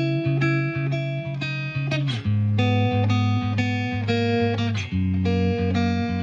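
Background music: a plucked guitar melody over a steady bass, with notes changing several times a second.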